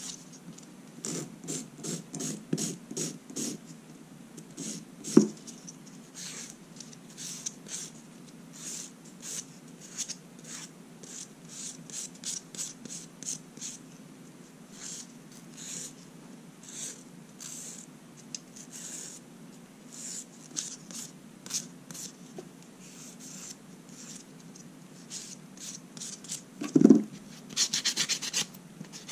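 Fingernails being filed in repeated short rubbing strokes, two to three a second, with a sharp click about five seconds in. The strokes turn quick and rapid near the end.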